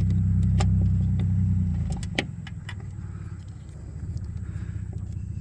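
Steady low hum of a vehicle engine running, which drops away about two seconds in, under small plastic clicks and taps from handling a bulb and its socket. There is a sharper click just after the hum drops.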